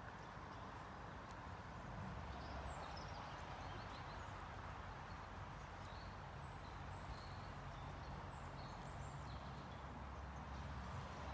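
Mouflon grazing close by, tearing and chewing grass: a faint, uneven patter of soft clicks and crunches.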